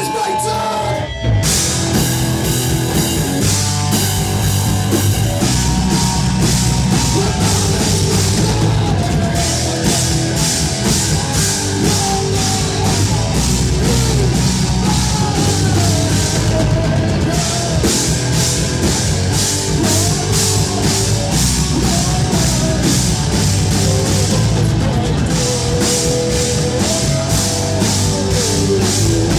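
Loud heavy rock music with a drum kit keeping a steady beat. A brief break about a second in, then the full band plays on.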